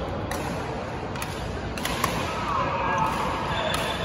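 Badminton rackets striking a shuttlecock during a doubles rally: several sharp cracks at irregular spacing over the steady noise of a sports hall, with a short falling squeak about two and a half seconds in.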